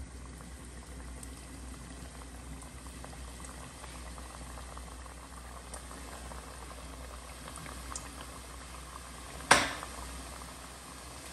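Namak pare dough pieces deep-frying in hot oil, a steady fizzing and bubbling sizzle. A single sharp knock sounds about nine and a half seconds in, the loudest moment.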